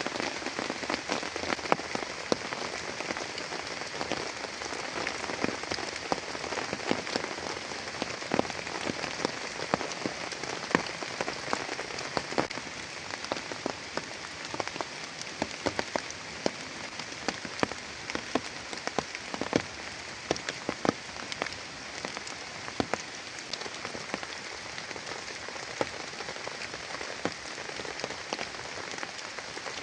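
Steady heavy rain, with many separate drops tapping loudly and close by over the constant hiss.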